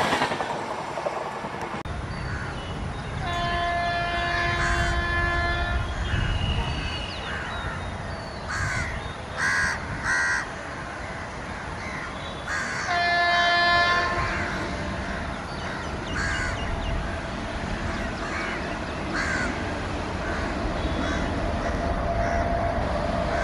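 The last coaches of a passing express train rush by in the first two seconds. Then an approaching WAP-7 electric locomotive sounds its horn twice, a long blast of nearly three seconds and a shorter one about ten seconds later, over the low steady rumble of the oncoming train. Crows caw repeatedly in between.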